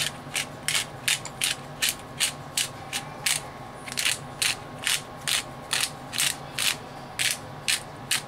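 Hand-twisted pepper mill grinding black peppercorns: a regular series of short, gritty grinding strokes, about three a second, with a brief pause a little after three seconds in.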